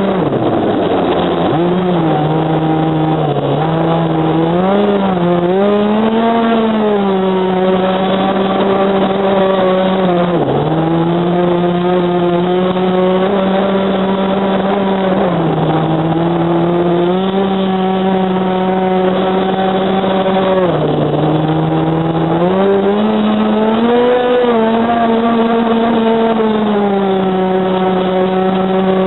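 26 cc two-stroke petrol engine of an RC speedboat, heard close up from on board, running at high revs with a steady pitch. Several times the throttle is briefly backed off, so the pitch drops and then climbs back.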